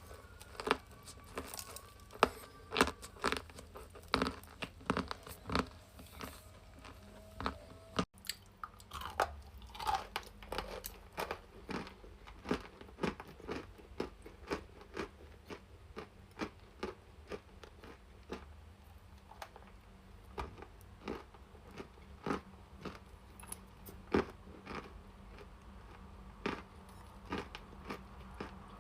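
Sticks of chalk being bitten and chewed close to the microphone: a steady run of sharp, dry crunches, about one or two a second.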